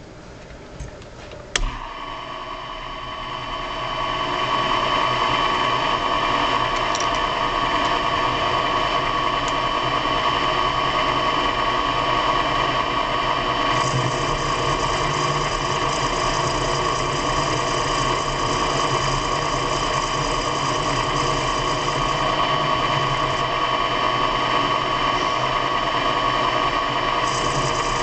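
An electric machine-tool motor is switched on with a click and spins up to a steady, whining run. A higher hiss joins about halfway through and again near the end.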